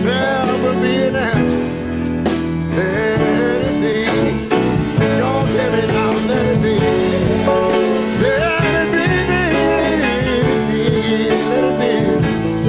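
Piano-led band playing an instrumental break in a soul-style ballad, over sustained chords, with a melody line that bends in pitch.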